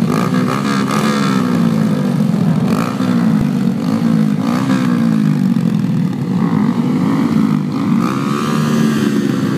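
A grid of small pit bike engines idling and being revved together, several engine notes rising and falling over one another.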